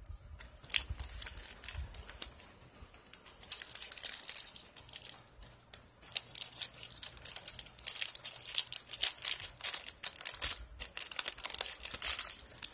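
Clear plastic packaging around trading cards crinkling and crackling as it is handled and unwrapped, in dense runs of quick crackles with a short lull about ten seconds in.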